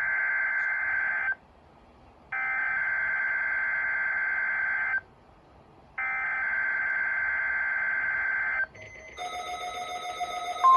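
NOAA Weather Radio Emergency Alert System (SAME) header for a Required Weekly Test: three bursts of raspy digital data tones, each about one to two and a half seconds long, with about a second of quiet between them. Near the end a mix of steady electronic tones begins, and a loud steady alert tone starts at the very end.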